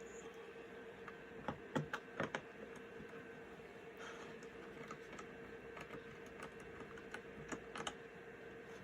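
Small sharp clicks and taps of a T6 Torx screwdriver and its screws on a laptop hard drive's metal cover as the cover is screwed back on. A cluster of louder clicks comes about one and a half to two and a half seconds in, then scattered lighter ones, over a faint steady hum.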